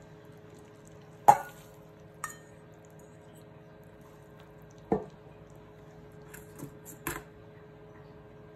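A stainless steel colander and a glass mixing bowl knocking together as drained glass noodles are tipped out and pressed down. There is one sharp clank just over a second in, then lighter knocks and a few small clicks.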